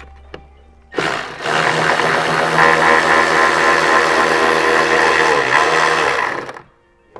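A power tool driving a 7mm socket on an extension runs steadily for about five and a half seconds, backing out a rear-bumper screw, then stops abruptly.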